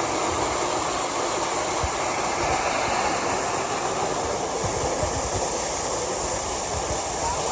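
Waterfall rushing steadily, a continuous roar of falling water.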